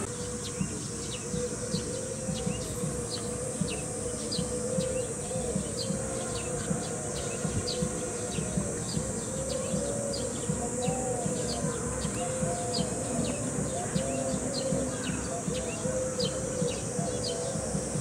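A steady high-pitched insect drone, with many short bird chirps and calls over it.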